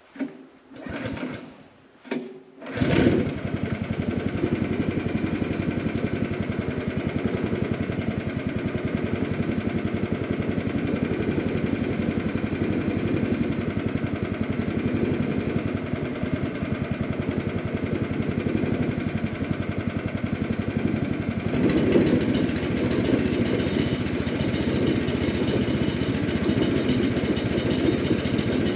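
An engine starts about three seconds in, after a few short bursts, then runs steadily, picking up a little around twenty-two seconds.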